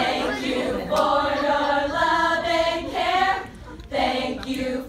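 A line of women singing a sorority song together in unison, unaccompanied, in held phrases. The singing breaks off briefly a little past the middle, then starts again.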